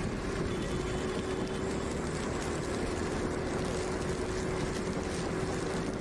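Motorbike running steadily at riding speed, with a faint even hum and road and wind noise from travelling on a wet road.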